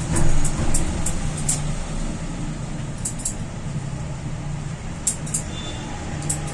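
Steady street traffic noise, a low rumble, with a few sharp clicks or taps scattered through it.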